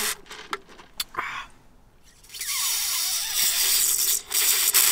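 Sipping a drink through a plastic straw from a paper cup: a few small clicks, then about two and a half seconds of steady slurping hiss.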